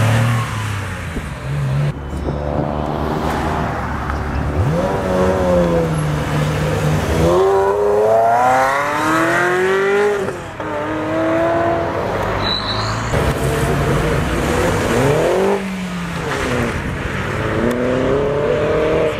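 Sports car engines revving hard as several cars accelerate away one after another, among them a Porsche 911 and a Ferrari. Each engine note climbs steeply in pitch and dips back at the gear changes, with the longest, strongest climb near the middle.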